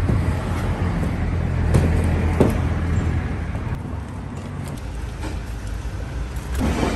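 A motor vehicle engine running steadily at low revs, with a few short knocks and clatters.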